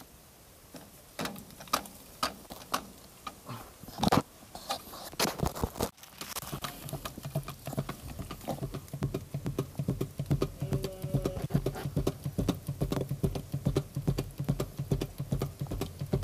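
Handling noise from working with a hand grease gun on a tractor: scattered knocks and clicks for the first few seconds, then from about six seconds in a fast, steady run of clicks and rustles.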